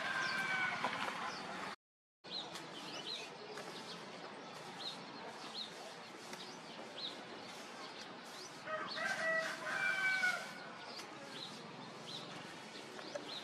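A rooster crowing twice, at the start and again about nine seconds in, while small birds chirp in short high notes.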